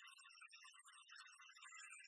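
Faint background music: a quick patter of high notes with no bass.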